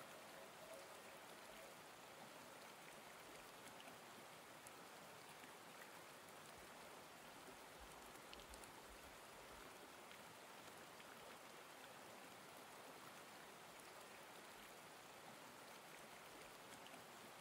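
Near silence: a faint, even rain-like hiss with a few soft ticks, after the music's last held tone fades out in the first second.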